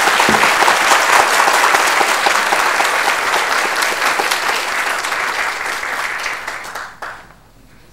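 Audience applauding, the clapping tapering off and dying away about seven seconds in.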